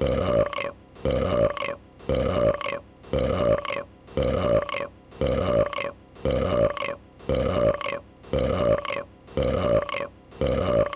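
A dragon's belch sound effect, a single burp looped so that it repeats about once a second, some ten times over, with a brief dip between repeats.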